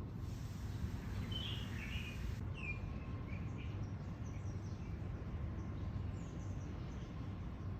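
Birds chirping now and then, a few short calls at a time, over a steady low background rumble of outdoor noise.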